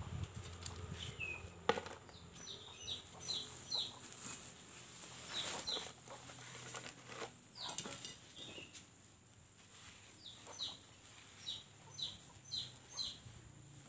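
A bird calling in two runs of short, high, falling chirps, about five notes each, with a few sharp knocks in between.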